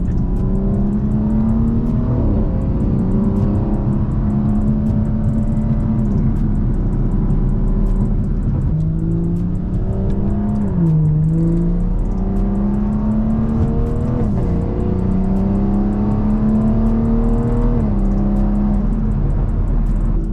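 BMW 340i's B58 turbocharged inline-six with a Valvetronic axle-back exhaust and deleted resonators, driving and pulling through the revs: its pitch climbs slowly for a few seconds and then drops, about five times, over a steady low road rumble.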